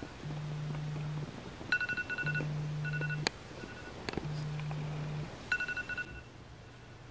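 An iPhone alarm going off: the phone's vibration buzzes in pulses about a second long, with clusters of quick high beeps over it. It stops about six seconds in.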